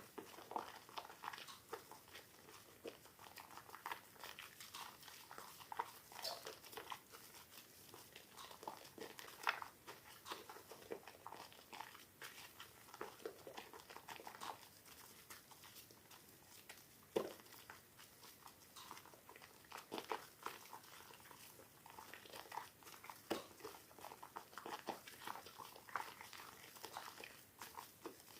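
Soaked soap being played with by hand, squeezed and crushed, giving a quiet, irregular run of soft crackles and squishes with a few sharper cracks.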